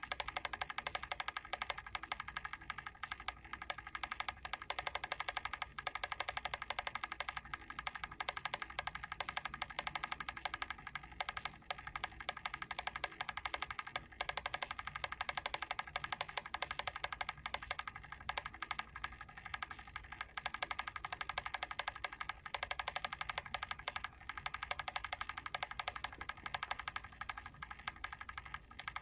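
Mechanical timer switch ticking with a fast, even run of small clicks.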